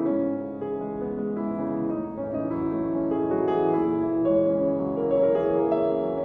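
Background music: gentle piano playing sustained notes that change one after another.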